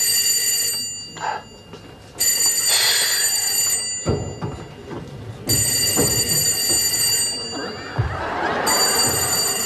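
Telephone ringing in a steady cadence: four rings of about a second and a half each, with pauses of about the same length. A few dull thumps, like footsteps on the floor, fall between the later rings.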